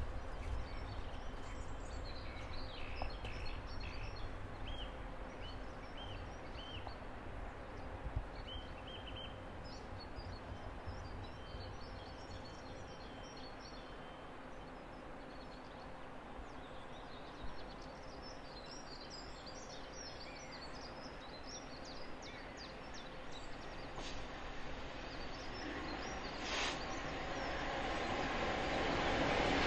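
Birds chirping over a low, steady outdoor background hum. In the last few seconds the rumble of an approaching train rises steadily.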